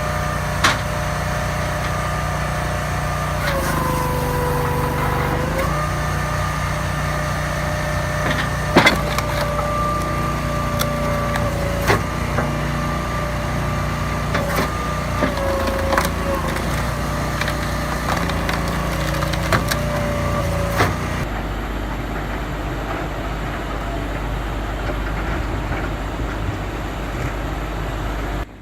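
Engine-driven log splitter running steadily, its pitch sagging briefly as it takes load, with repeated sharp cracks of wood splitting.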